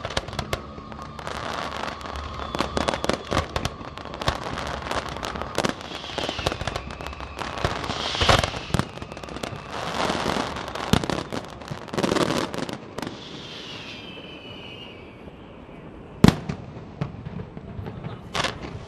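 Fireworks display: dense crackling and many bangs, with whistling glides about 6 and 14 seconds in. One sharp bang, the loudest of all, comes about 16 seconds in.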